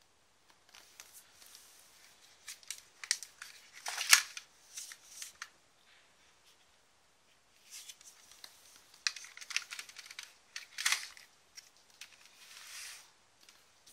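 Edison Giocattoli plastic toy ray guns and their plastic holsters being handled: a run of small clicks, knocks and rustles in two spells, the sharpest click about four seconds in.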